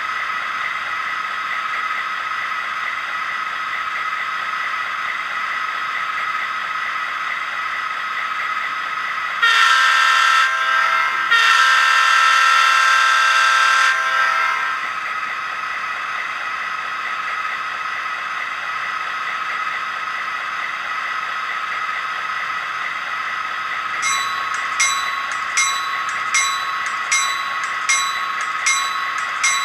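DCC sound decoder in an HO-scale SD45T-2 model locomotive, heard through its small onboard speaker: the diesel engine sound idles steadily. About ten seconds in, the horn sounds twice, a short blast and then a longer one of about three seconds. Near the end the locomotive bell starts ringing, a little over one strike a second.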